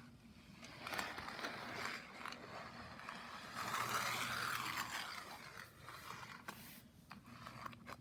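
Small die-cast toy cars being pushed and rolled across a play mat, with irregular scraping and light clicks, the longest scrape about four seconds in.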